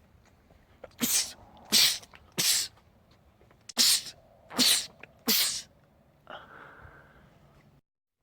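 A man sneezing six times in two quick runs of three, each sneeze short and loud.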